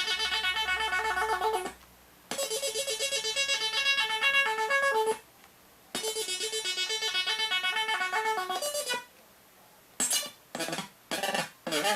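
Electronic sound-effects synthesizer circuit playing rapid runs of short beeping notes in melody-like patterns: three runs of a few seconds with brief silences between them, then a handful of short bursts near the end.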